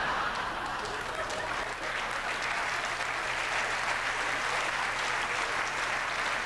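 Theatre audience applauding steadily, with laughter mixed in: the dense patter of many hands clapping.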